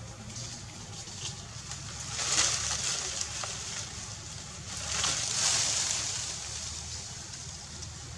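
Forest ambience: two swells of rustling hiss that rise and fall, about two and five seconds in, over a steady low rumble.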